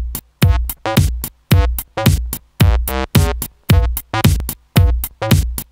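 Electronic title music: short, sharp pitched stabs over low beats, about two a second, each dying away quickly.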